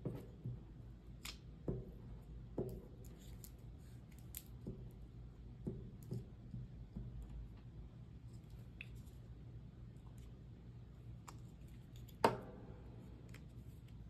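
Scissors snipping paper, with small taps and rustles of paper being handled on a table. One louder knock comes about twelve seconds in.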